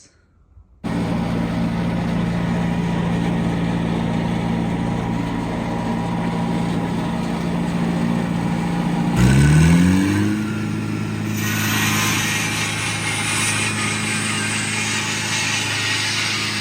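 Engine of a small work machine running steadily, then revving up about nine seconds in and holding at a higher speed, with a hiss joining soon after.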